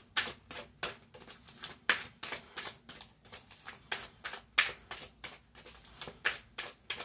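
A deck of oracle cards being shuffled by hand: a steady run of quick card slaps and clicks, about three or four a second.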